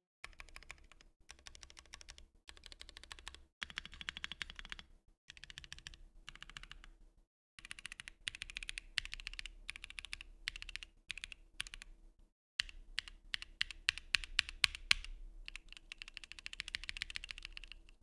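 Typing on a Bakeneko60 aluminium keyboard with stock, unlubed Kinetic Labs Husky linear switches (long-pole stems): a steady patter of keystrokes in runs broken by short pauses. The later part brings a faster, louder run.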